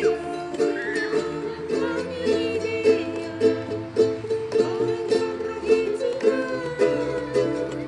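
Ukuleles strumming chords in a steady rhythm, the strokes evenly spaced, with the strumming pattern varied along the way.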